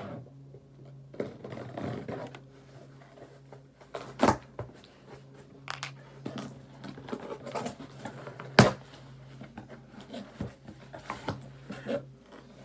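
Packaging being handled and pulled open: irregular rustling, scraping and clicks, with two sharp knocks, one about four seconds in and a louder one past halfway, over a low steady hum.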